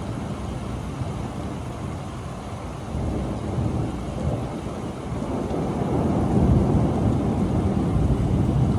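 Thunderstorm with rain: a steady low rumble of thunder that swells louder a little past halfway and stays up near the end.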